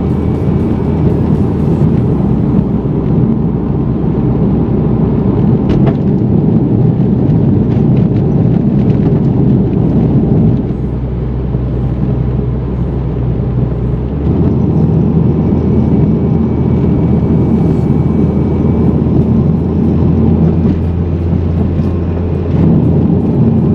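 Mitsubishi Lancer Evolution X's turbocharged 2.0-litre four-cylinder engine running under load, heard from inside the cabin with tyre and road noise. It eases off for a few seconds near the middle, then pulls harder again, and gets louder once more near the end.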